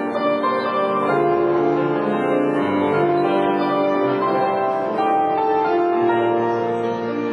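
Grand piano playing the solo introduction of a classical art song: sustained chords with a melody line moving over them.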